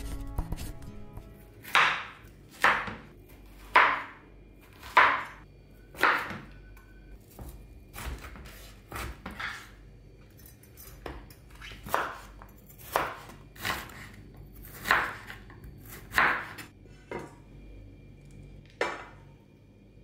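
A knife chopping food on a cutting board: about fifteen separate strokes, roughly one a second and unevenly spaced, each with a short tail, the loudest in the first few seconds. Soft guitar music fades out right at the start.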